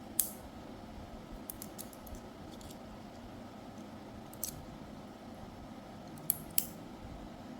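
Scattered sharp clicks from a hair trimmer and its metal blade being handled: a loud click at the very start, a few quicker ticks about one and a half to two seconds in, one around four and a half seconds, and a close pair near the end, over a faint steady background.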